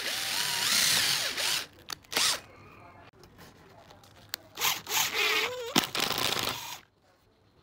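Cordless drill boring a pilot hole into pine board for about two seconds, its motor pitch gliding as it bites. Then a few seconds later come short bursts as it drives a screw into the wood, stopping near the end.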